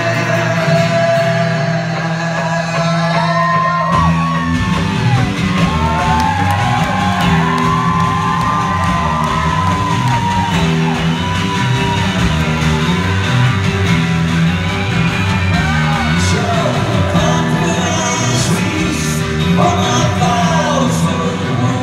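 A live band plays: acoustic guitar and bass guitar under a man singing long, gliding vocal lines into a microphone. The bass line comes in about four seconds in.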